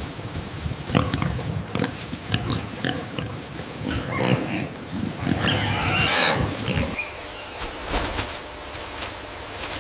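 Pigs grunting in short, irregular bursts, with a longer, louder, harsher stretch about five and a half to six and a half seconds in; the sound thins to a few scattered grunts after about seven seconds.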